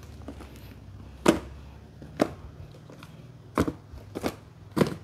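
Small cardboard boxes holding batteries being set down and shuffled on top of cardboard power-tool cartons: five short, sharp knocks at irregular intervals.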